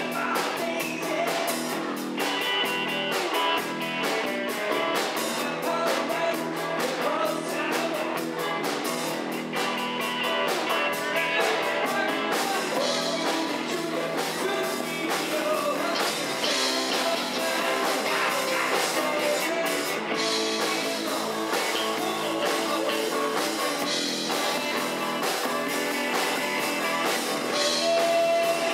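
Live rock band playing: electric guitars, electric bass and drum kit, with a steady beat of cymbal and drum hits.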